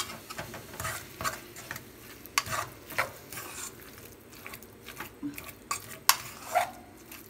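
Fork mashing boiled potatoes in a metal pot, the tines scraping and clicking against the pot's bottom and sides in irregular strokes.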